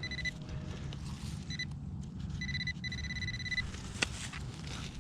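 Metal detector sounding a steady high beep in three stretches, the longest about a second, signalling a metal target in the dig hole. A sharp click comes about four seconds in.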